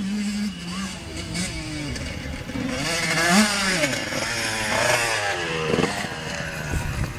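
Enduro dirt bike engine revving hard as the bike rides past, its pitch climbing and dropping several times with the throttle and gear changes, loudest about three seconds in.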